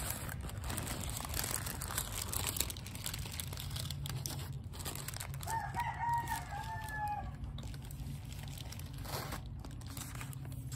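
A rooster crows once near the middle, a call about two seconds long, over light rustling and crinkling of a paper wrapper.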